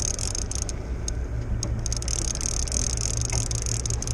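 Conventional fishing reel cranked steadily against a hooked fish, its gears giving a fast ticking rattle, over the steady low hum of the boat's engine.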